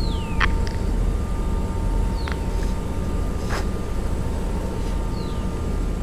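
Ambient sound-design drone: a deep, steady rumble with faint held high tones above it, crossed by a few short falling whistle-like tones and brief crackles.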